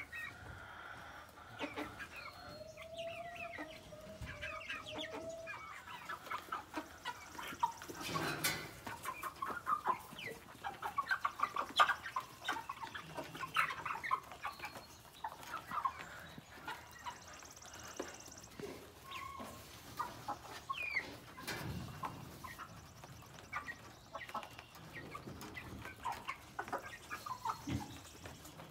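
Small flock of eight-week-old Cornish cross meat chickens, with a few egg-layer hens among them, clucking and peeping in short, scattered calls while they feed.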